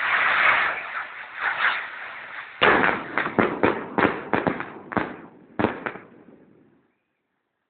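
Fireworks: a loud hiss for about a second and a half, then a rapid string of about a dozen sharp bangs over three seconds, fading out near the end.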